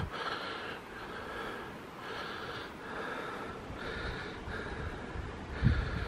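A person's breathing, close to the microphone: a steady series of audible in-and-out breaths, about one a second.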